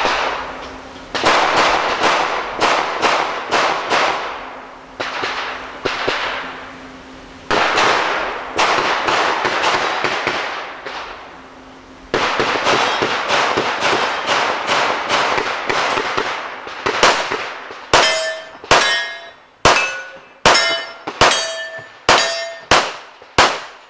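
Rapid strings of 9 mm pistol shots from a Smith & Wesson M&P9 Pro, with a short lull near the middle. Near the end come about nine spaced shots, each followed by a ringing clang as the bullet hits a steel target.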